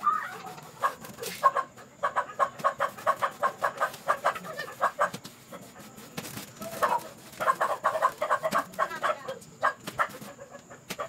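Rapid runs of clucking calls from a bird, about seven a second, in two long bouts: one starting about two seconds in and another about seven seconds in.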